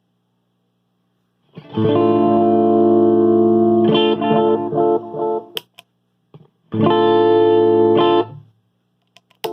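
Distorted electric guitar chords played through a Donner White Tape stereo delay pedal into two amps. A loud held chord begins about a second and a half in and breaks into choppier notes. After a short click and a pause, a second held chord rings and is cut off, and a second click follows near the end.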